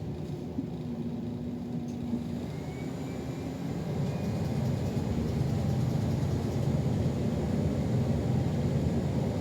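City bus riding, heard from inside the passenger cabin: a steady low engine and road rumble that grows louder about four seconds in.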